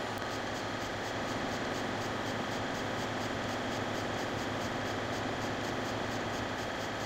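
Airbrush spraying heavily thinned paint: a steady hiss of air, with a faint, fast pulsing high up at about four a second.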